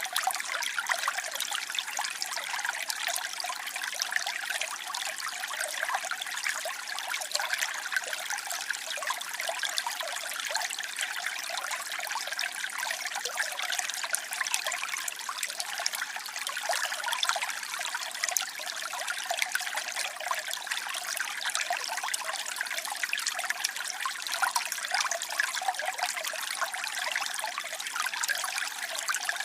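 Waterfall: a steady rush of falling, splashing water, unbroken and even, heard mostly in the hiss and splash with little low rumble.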